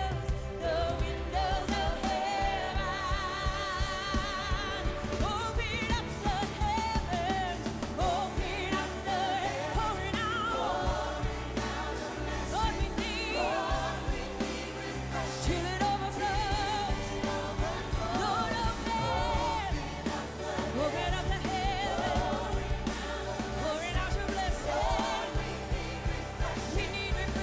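Live worship band and women singers performing a gospel song, with held notes that waver in pitch over drums and keyboard and a steady beat.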